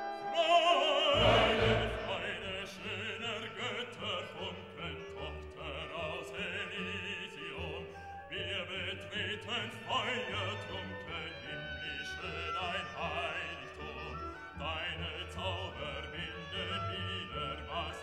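Classical music with operatic singing over an orchestra.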